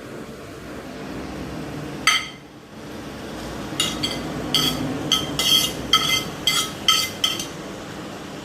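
A kitchen utensil clinking against cookware while vegetables are added to a pan: one sharp ringing clink about two seconds in, then a run of about eight quick clinks with the same ring, over a steady background hiss.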